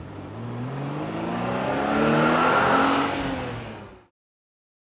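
Racing kart engine revving up and passing by, rising in pitch and growing louder, then dropping slightly in pitch before cutting off suddenly about four seconds in.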